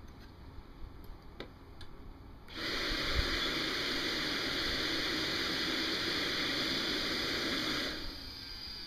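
Handheld blower air rushing into the intake of an AMT AT-180 RC turbine engine to spin it up for a manual air start. A few light handling clicks come first; the blower comes on about two and a half seconds in as a steady rushing hiss for about five seconds, then drops abruptly to a lower hiss as the air is eased away.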